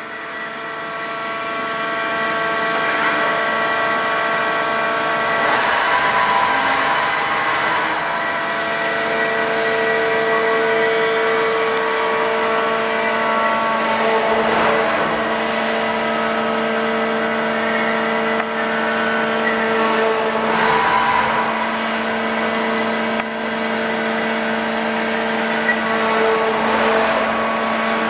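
Hartford CNC machining centre milling, its spindle and cutter giving steady whining tones with recurring swells of cutting noise every several seconds.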